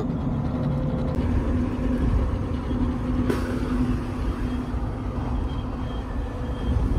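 Land Rover Defender driving at motorway speed: a steady low engine and road drone with a constant hum, and a single sharp click a little over three seconds in.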